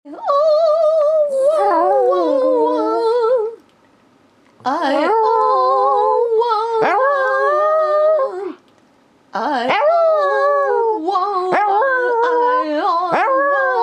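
Small long-haired dog howling along in three long, wavering phrases with short pauses between them, with sharp rising yips near the end. A second voice carries a tune underneath the howls.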